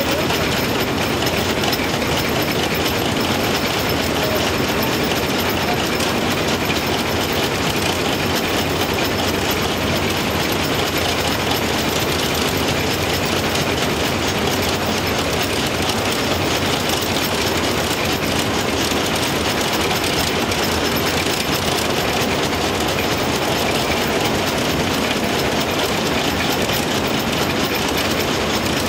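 Steam locomotive 423.0145 running, heard from inside its cab: a loud, steady, fast clatter of the moving locomotive on the rails.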